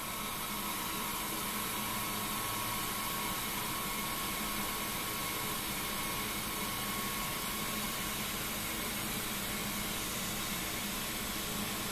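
ProtoTRAK two-axis bed mill running under program control: the spindle turning while the end mill cuts the outside profile in 1/4-inch aluminum, a steady even noise with a faint steady whine.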